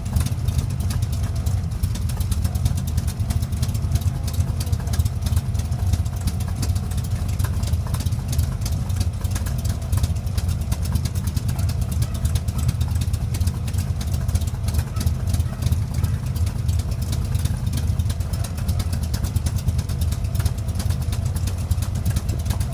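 Chevy V8 engine idling steadily.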